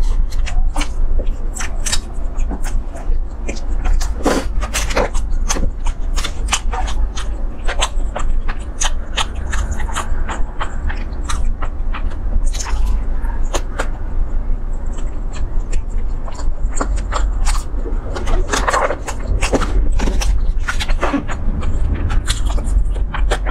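Close-miked chewing with many short wet mouth clicks and lip smacks from eating sushi, over a steady low hum.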